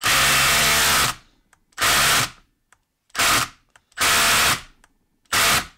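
Milwaukee cordless impact driver hammering a socket on a bolt set in a wooden stump, in five short bursts with pauses between: the first about a second long, the rest about half a second each.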